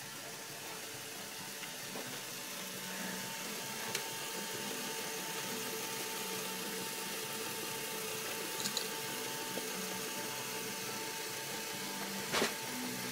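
Lego Power Functions motors driving a Lego Technic ski lift and its conveyor: a steady whir with a few sharp clicks, the loudest near the end.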